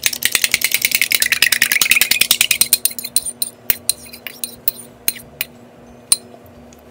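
Beaten egg hitting hot oil in a non-stick frying pan: dense, fast crackling and spitting for the first three seconds, thinning to occasional sharp pops as the egg settles and bubbles. A low steady hum runs underneath.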